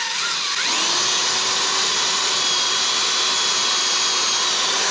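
Corded electric drill running at speed, boring a countersink hole about an inch and a half deep into a pine 2x4. A steady, loud motor whine whose pitch wavers in the first second, then holds steady.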